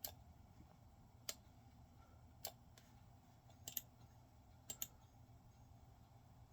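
Computer mouse clicking over near silence: three single clicks about a second apart, then two quick double-clicks.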